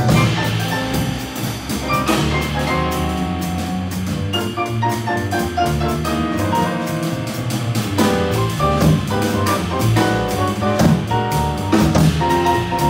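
Live jazz combo playing: a grand piano runs lines over walking upright bass and a drum kit with cymbals. A long held note comes in near the end.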